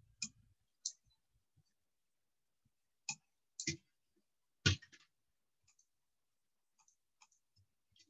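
About ten separate clicks at a computer, as from a mouse and keys, spread unevenly, some close together in pairs, the loudest a little before the five-second mark.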